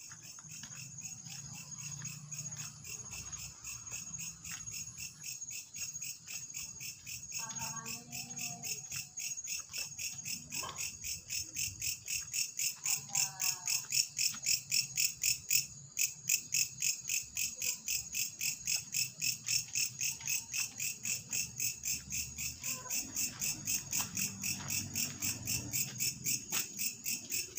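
Crickets chirping in a steady pulsing rhythm, about four chirps a second, growing louder toward the middle.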